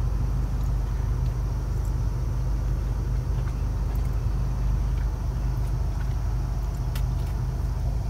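Steady low rumble of a car's engine and tyres heard from inside the cabin while it drives.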